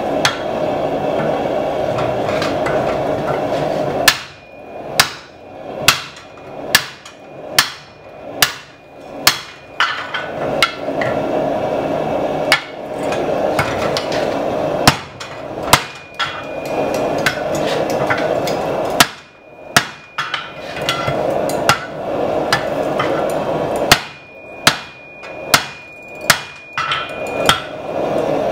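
Hand hammer striking a steel drift driven through the red-hot eye of a hatchet head set over a hole in a swage block, opening up the eye. The blows come in several quick rounds, many of them ringing with a high tone. Between rounds there is a steady rushing noise.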